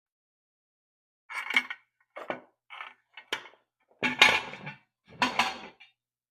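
Metal tools and loose exhaust hardware clinking and clanking in a run of about six short, sharp bursts, as screws and bolts are undone and handled while a motorcycle's exhaust is taken off.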